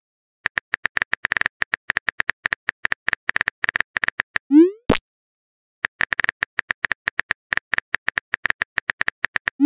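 Phone keyboard typing sound effect: quick runs of light clicks, broken about halfway through by a short rising whoop ending in a pop as a message is sent. The clicking starts again and another send whoop comes at the very end.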